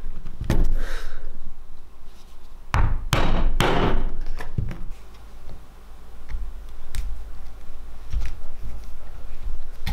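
Dull thuds of a plastic-headed mallet beating a folded leather sheath on a cork mat: one blow about half a second in, then a quick run of heavier blows around three to four seconds in. Lighter, sparser knocks follow.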